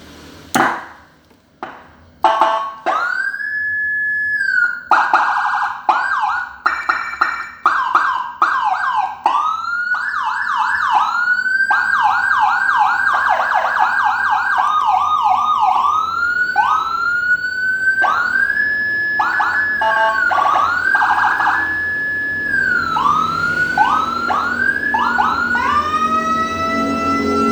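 Whelen HHS electronic siren on a 200-watt speaker, stepping through its tones. After a click about half a second in and a few short chirps, it plays a slow rise held high then falling, runs of fast repeated up-sweeps, and quick warbles, changing tone every few seconds.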